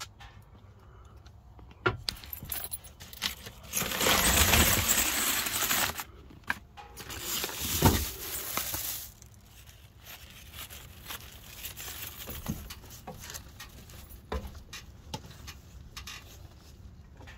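Keys jangling and clinking amid handling noise: scattered clicks and knocks, with two long spells of loud rustling, the first starting about four seconds in.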